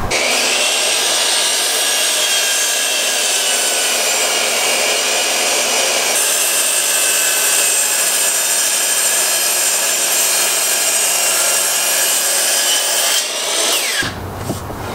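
Miter saw running and crosscutting alder boards, a steady high motor whine with the blade cutting through the wood. Near the end the motor is switched off and the blade spins down with a falling whine.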